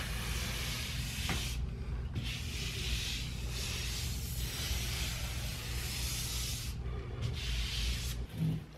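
A hand sweeping back and forth over a freshly sanded drywall ceiling patch of joint compound: a dry rubbing hiss in four or five long strokes with short pauses between them, over a low steady hum.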